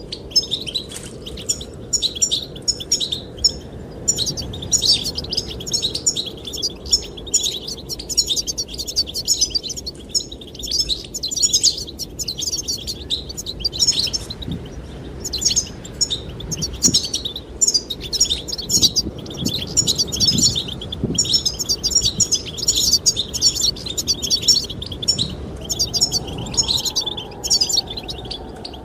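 Goldfinches singing: a dense, continuous run of rapid, twittering high chirps, over a steady low rush of wind.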